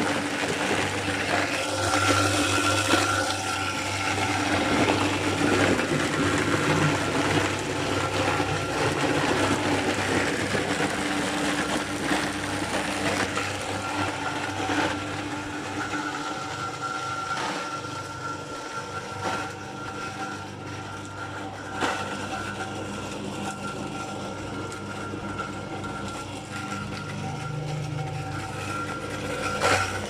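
Apple mill running, grinding apples for cider: a steady machine drone with a high whine and scattered sharp knocks, a little quieter in the second half.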